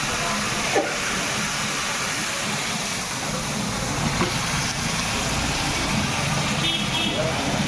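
Steady hissing noise with a low rumble underneath, and a few short high chirps about seven seconds in.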